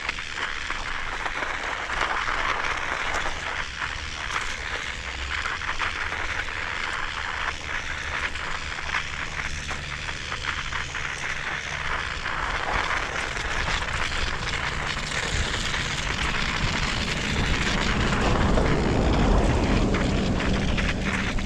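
Steady wind and road noise from riding a bicycle outdoors in winter, with many small crackles through it, swelling louder near the end.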